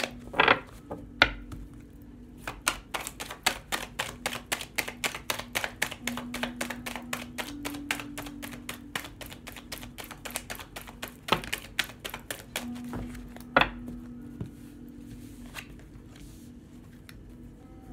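A deck of tarot cards shuffled by hand: a quick, even run of soft card slaps and clicks, several a second, with a few louder slaps, thinning to scattered taps in the last few seconds. A soft low tone of background music that shifts pitch runs underneath.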